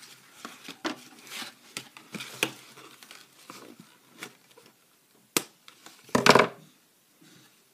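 Toy packaging crinkling and rustling as it is handled and opened, in irregular bursts, with a sharp click a little after five seconds and a louder burst of rustling about six seconds in.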